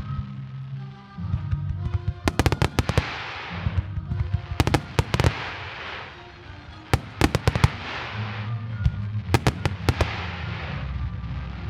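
Aerial fireworks shells bursting in four quick clusters of sharp bangs, about two and a half seconds apart, each trailing off in a crackling hiss. Music plays underneath.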